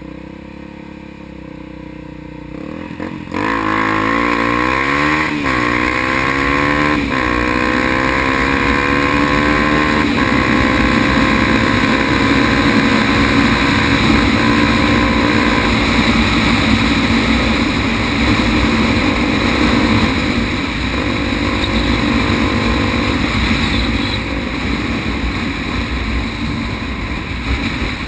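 Honda XR250 Tornado's single-cylinder engine idling, then pulling away hard after about three seconds. The pitch rises and drops back three times as it shifts up through the gears. It then settles into a steady cruise.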